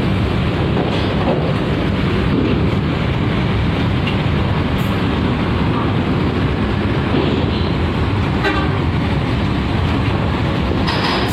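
Diesel bus engines running at close range, a steady loud low rumble.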